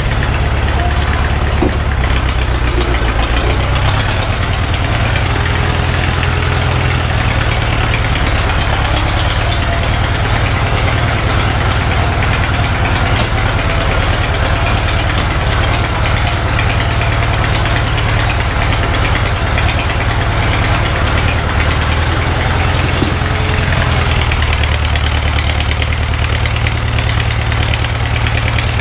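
Engine of an old vehicle running steadily at low speed, its note shifting slightly a few seconds in and again near the end.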